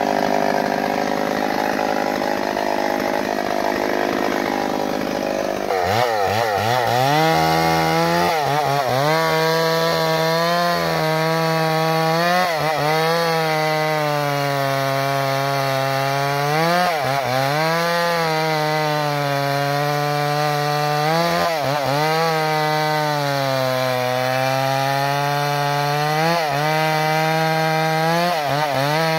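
Two-stroke chainsaw running at full throttle, cutting into a tree trunk. Every four to five seconds its pitch sags as the chain bites into the wood, then climbs back.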